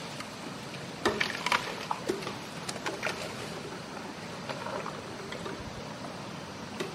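Asian elephant feeding on fresh grass and leaves: rustling and crackling as its trunk gathers and snaps the stalks, with a cluster of sharp crunches about a second in and a few more around two to three seconds.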